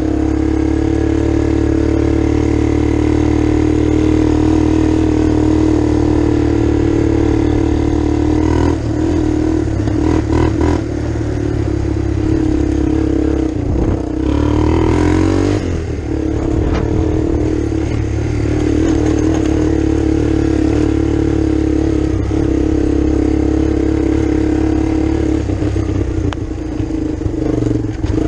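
Kawasaki Bayou ATV's single-cylinder four-stroke engine running under way at a steady pace. In the middle the engine note wavers and dips as the throttle eases off and comes back on through a turn, then it settles back to a steady drone.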